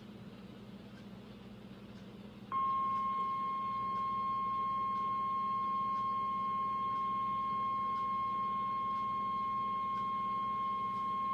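NOAA Weather Radio 1050 Hz warning alarm tone: one steady, unbroken beep that comes on about two and a half seconds in, after faint radio hiss and hum, and holds to the end. It signals that a warning message, here a flash flood warning, is about to be broadcast.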